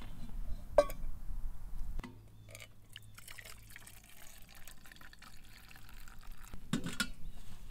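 Water poured from a stainless steel camp pot into a titanium mug, a thin stream trickling and filling the mug. There is a sharp metal clink about a second in and a knock near the end.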